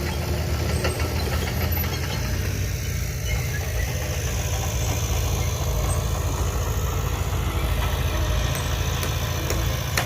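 Heavy diesel engine of earthmoving equipment running steadily with a fast, even low-pitched chug, with a few faint knocks.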